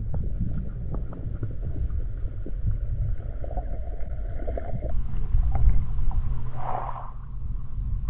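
Wind buffeting the microphone, a heavy, uneven low rumble.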